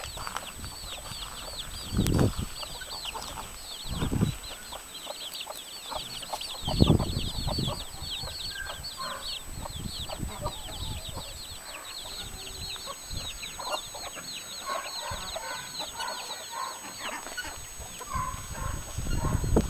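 Young chicks peeping in a dense run of short, high, falling chirps, with a mother hen clucking now and then in the second half. A few low thumps stand out about two, four and seven seconds in.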